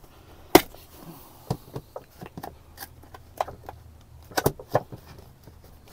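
A pry tool clicking and scraping against a small plastic cover on a seat-rail bolt as it is worked at to pop the cover off: a scattering of sharp clicks and taps, the loudest about half a second in and a quick pair near the end.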